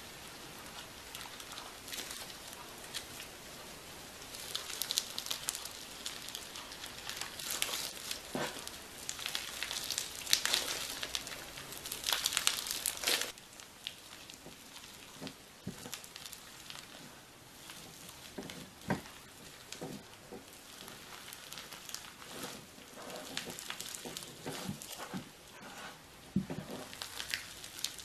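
Slime being squeezed and worked by hand, a run of small crackling, popping clicks, busiest in the first half and thinning out from about halfway through.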